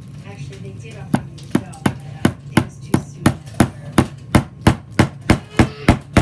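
Knife chopping on a cutting board in a steady rhythm of about three strokes a second, starting about a second in, over a low steady hum.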